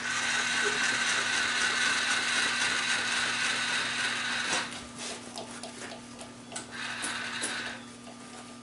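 Vertical milling machine cutting metal: the milling cutter chewing into the vise-clamped workpiece with a steady, whining cutting noise for about four and a half seconds, then quieter, with a shorter cut near the end, while the machine's motor hums steadily underneath.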